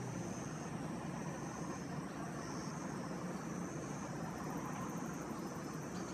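Steady outdoor background noise, like distant traffic, with a faint high trill that comes and goes in stretches of about a second.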